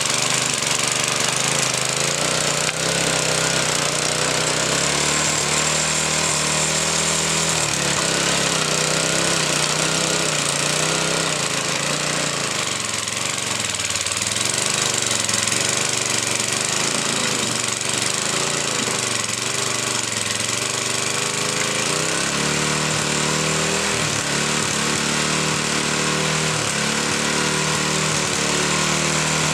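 Earthquake garden tiller's small gas engine running steadily, its pitch shifting up and down as the tines work the soil.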